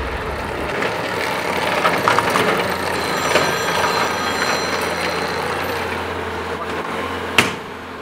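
Bobcat compact track loader running and driving across a gravel yard, its engine a steady low hum. There is a sharp click near the end.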